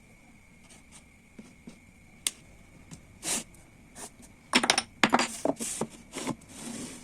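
Wooden pieces and hand tools being handled in woodworking: scattered clicks and knocks with a few short scraping strokes, busiest about four to six seconds in.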